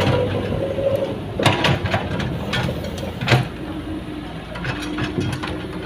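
Heavy diesel engine running, with several sharp metallic clanks and knocks.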